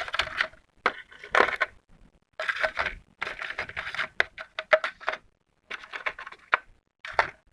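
Small metal screwdriver and Torx bits clicking and rattling as they are handled, in clusters of quick sharp clicks with short pauses between.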